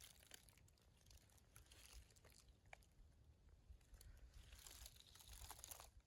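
Faint footsteps crunching irregularly along a forest trail, a little louder and busier near the end.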